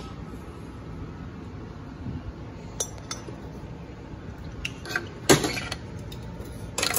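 Metal automatic-transmission parts clinking against each other and the steel bench as they are handled and set down, a few scattered clinks with the loudest about five seconds in.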